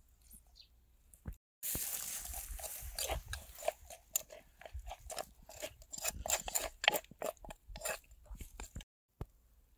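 A person chewing crisp food close to the microphone, with a dense run of irregular crunches. It starts abruptly about a second and a half in and stops abruptly near the end.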